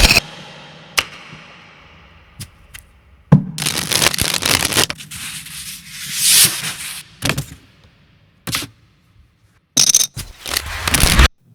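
Foley effects made with poker chips and playing cards: a few sharp clicks, then several bursts of clattering, sliding and rustling that cut off suddenly near the end.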